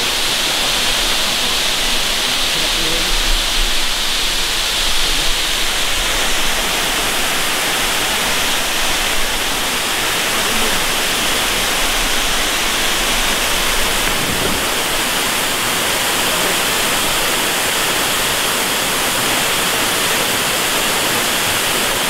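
Steady rushing of a waterfall pouring into a rock pool, an even roar of falling water.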